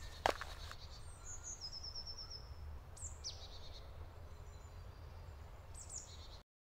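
Faint woodland birdsong: a quick run of short repeated chirps about a second in, falling calls around three seconds in and more chirps near the end, over a steady low rumble. One sharp knock sounds just after the start, and the sound cuts off to silence shortly before the end.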